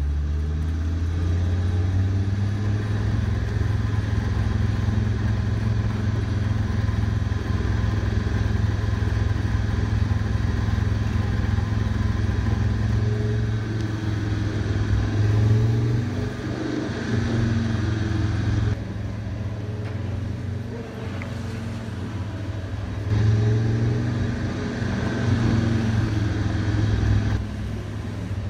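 Engine running steadily, swelling briefly like a rev about halfway through and again a few seconds before the end.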